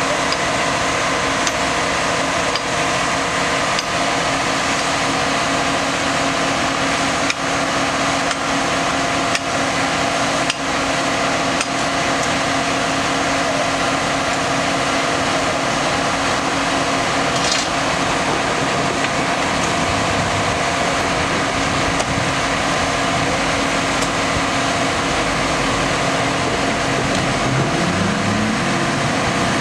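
Steady drone of the flash-butt welding truck's engine and power unit running, with occasional sharp metallic clinks of tools on the rail. Near the end a deeper engine note comes in and rises and falls in pitch.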